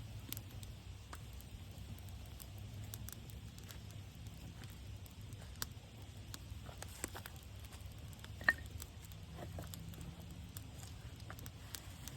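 Small, newly lit campfire of sticks and leaves crackling, with scattered sharp pops; the loudest pop comes about eight and a half seconds in.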